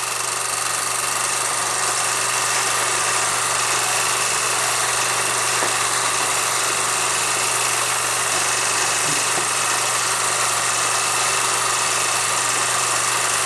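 Steady hiss with a constant low hum: the running noise of an old film's soundtrack playing back on a projector between narrated scenes.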